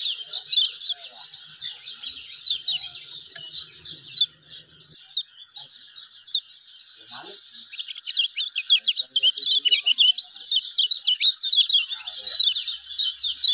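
Kecial kuning, a small yellow white-eye, twittering in a fast run of short, high, downward-sliding chirps. The chirping thins out in the middle and comes thick again in the second half.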